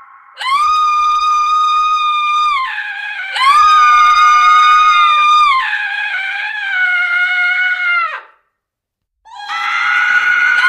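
Women's long, high-pitched horror screams, each held steady at one pitch for about two seconds. The first starts about half a second in and a second follows soon after, with more screams overlapping it. After a second of silence near the end, another scream begins.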